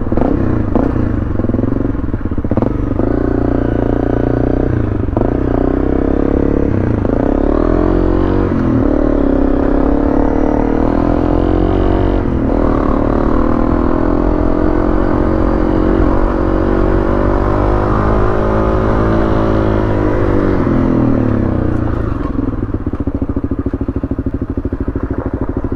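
Honda CRF250L's single-cylinder four-stroke engine running under riding load off-road, its pitch rising and falling with the throttle and gear changes, easing off near the end.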